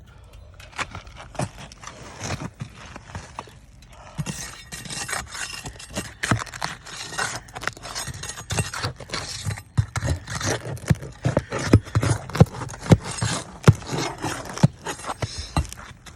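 Worn asphalt roof shingles being pried up: a dense run of scrapes, cracks and tearing, sparse at first and growing busier and louder after about four seconds. The shingles are in such bad shape that they tear and crease as they are lifted.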